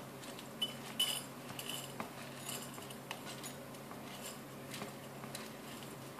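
Wet wheat grains stirred and rubbed by hand in a plastic colander: soft scattered rustles and small clicks, the loudest about a second in.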